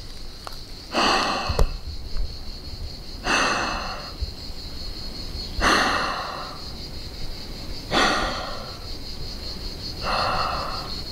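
A person breathing close to the microphone: five loud breaths at an even pace, about two seconds apart. Under them runs a steady high-pitched whine.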